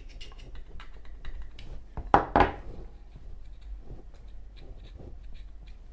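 Small clicks, taps and rubbing of a Zippo lighter insert being worked by hand as its rayon balls are pushed down, with two louder knocks close together about two seconds in.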